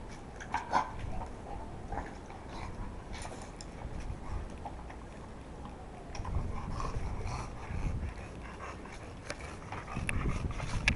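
An English bulldog and a French bulldog playing, making short dog noises, with scattered clicks. A louder low breathing-like noise comes in about six seconds in, and the English bulldog is panting close by near the end.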